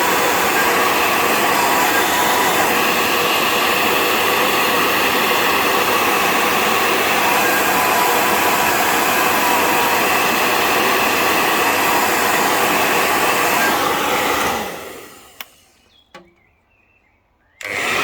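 Hair dryer blowing hot air steadily, heating the plastic yoke protector to soften it for shaping. About two thirds of the way through it is switched off and winds down to near silence, with a couple of light clicks. It comes back on abruptly near the end.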